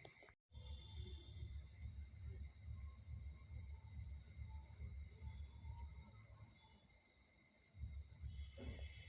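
Steady high-pitched chirring of insects, typical of crickets, over a low uneven rumble, with a brief total cut-out about half a second in.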